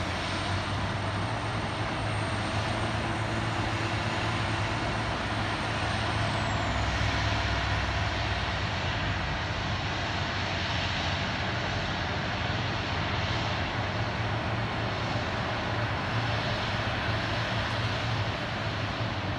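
Boeing 757 jet engines at taxi power: a steady rushing jet noise with a low hum underneath. About six seconds in, a faint high whine drops in pitch.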